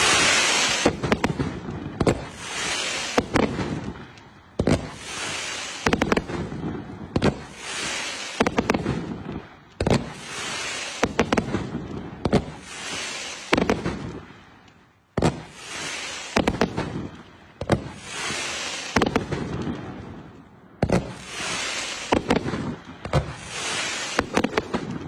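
A 110-shot fan cake firework (consumer repeater) firing shot after shot. Each shot is a sharp launch bang followed by a hiss of noise that fades, repeating about every second or so.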